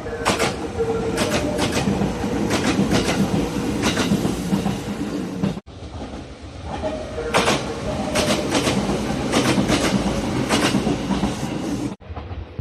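Nagano Electric Railway express train running on the line: a low rumble with its wheels clicking over the rail joints in quick pairs and clusters. The sound cuts off abruptly about halfway, and a second train run of the same kind follows.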